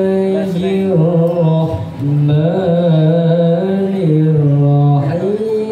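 A man's Qur'an recitation (qiro'ah) sung in the melodic style into a microphone and played through a sound system. He holds long notes with ornamented steps in pitch, with a short break about two seconds in.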